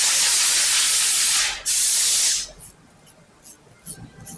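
Pressurised spray hissing in two long bursts, the first about a second and a half and the second shorter, after a brief break; a few faint light clicks follow.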